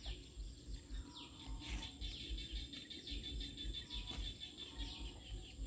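Birds chirping in a quick run of short falling notes, over a faint steady insect drone.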